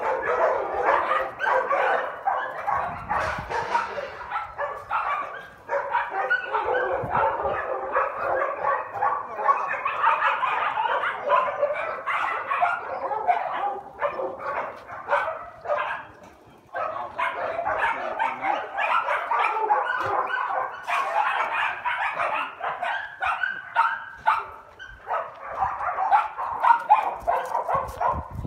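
Dogs barking and yipping almost without a break as they wrestle in play, with a short lull a little past the middle.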